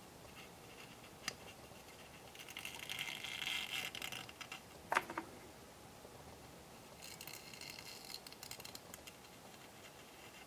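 Faint scratchy rubbing of a fine paint applicator drawn around the rim of a plastic model train's cab window, in two short stretches, with a couple of small clicks in between.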